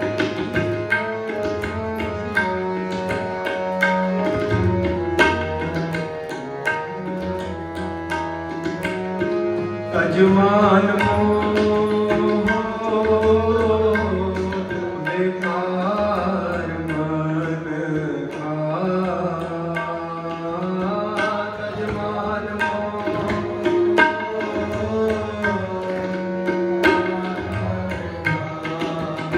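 Sikh devotional kirtan: tabla keeps a steady rhythm under harmonium notes held and changed in steps. A voice sings the melody from about a third of the way in.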